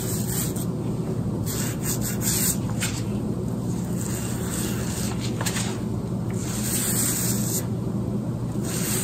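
Paint roller rolled back and forth through wet paint along the edges of a cabinet door: a hissing swish that swells and fades with each stroke, several times with short pauses, over a steady low background hum.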